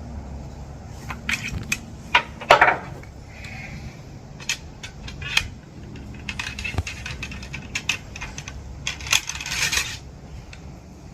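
Loading a Traditions Mountain Rifle muzzleloader: a ramrod working a 250-grain Powerbelt bullet down the barrel, with scattered metallic clinks, taps and scrapes.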